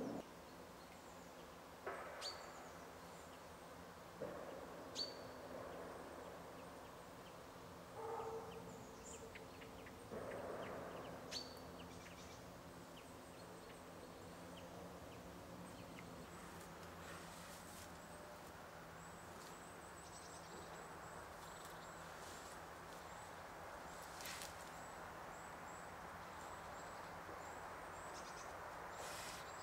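Quiet outdoor countryside ambience with a steady low hiss and a few short, high bird calls, about two, five and eleven seconds in.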